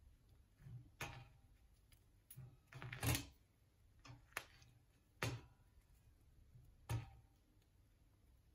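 Wooden tongs clicking and tapping against a wire roasting grill and a crisp papad as it is lifted and turned: about six sharp, irregular clicks, the loudest a quick cluster about three seconds in.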